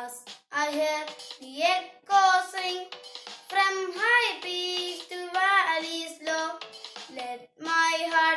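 A boy singing solo in a series of phrases of held notes, with brief pauses between the phrases.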